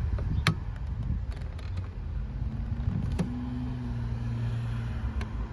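Screwdriver and fingers working the plastic retaining tab of a Corolla/Prizm inner door handle around the door-latch rod: two sharp clicks, about half a second in and about three seconds in, over a steady low rumble.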